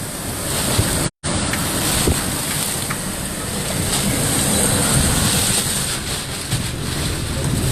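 Hurricane-force eyewall winds of Hurricane Michael blowing hard and steadily, buffeting the microphone. The audio drops out for an instant about a second in.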